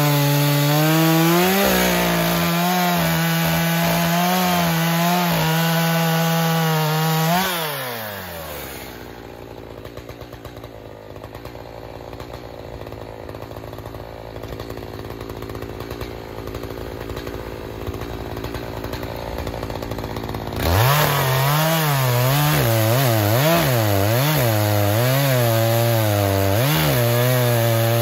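Two-stroke chainsaw, likely an Echo CS-4510, running at full throttle and bogging slightly as it cuts through a log. About seven and a half seconds in, the throttle is released and the engine winds down to a quiet idle. Some twelve seconds later it revs sharply back up and cuts again, its pitch rising and falling as it loads up in the wood.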